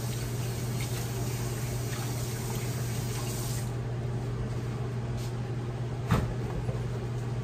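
Water running from a faucet that shuts off about three and a half seconds in, followed by a single knock near the end, over a steady low background hum.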